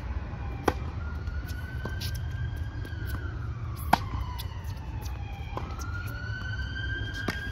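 Tennis ball struck by racket strings: a sharp pop about a second in as the serve is hit, and a louder one about four seconds in on a forehand, with fainter hits from the far end of the court. A siren wails slowly up and down in the background throughout.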